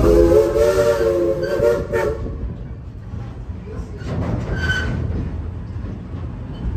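Narrow-gauge steam locomotive's chime whistle sounding one blast of about two seconds, several notes at once, cutting off sharply; the train keeps rumbling along the track afterwards.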